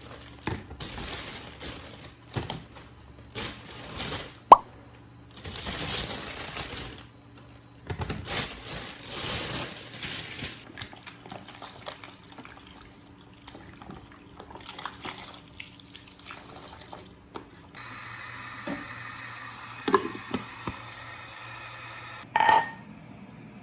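Kitchen water sounds: water running and splashing in irregular bursts of a second or two, with a few sharp clinks and knocks in between, the loudest about four seconds in and near the end.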